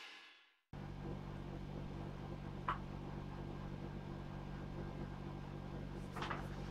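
Intro music fades out, then after a brief dropout a steady low electrical hum of room tone sets in, with a faint short sound about two and a half seconds in.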